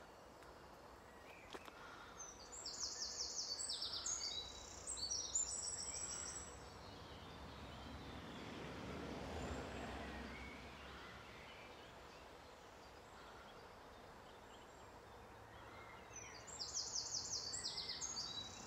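A songbird sings twice, each song a run of high, rapid notes and trills lasting about four seconds, the first a couple of seconds in and the second near the end. Between the songs a soft rushing sound swells and fades.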